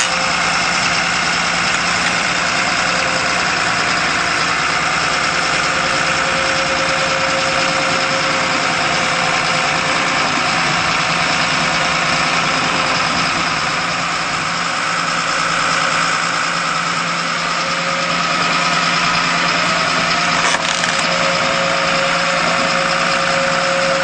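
Bulldozer's diesel engine running steadily at low revs as the machine drives over a plastic feeder, with one short click about twenty seconds in.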